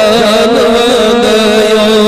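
A man singing a Kashmiri naat, a devotional song in praise of the Prophet, into a microphone. He holds long, wavering, ornamented notes.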